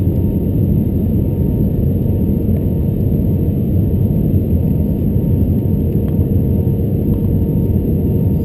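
Steady cabin noise of an Airbus A320-200 airliner on approach, heard from a window seat: a deep, even rumble of engines and airflow with faint steady tones over it.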